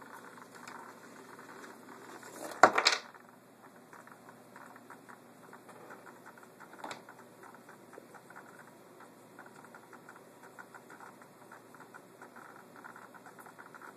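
Handling noise from a foam flying-wing airframe being picked up and turned over: a loud knock and rustle about three seconds in, and a smaller click near seven seconds. Under it runs faint, irregular ticking that fits the model's jittering, misbehaving servos.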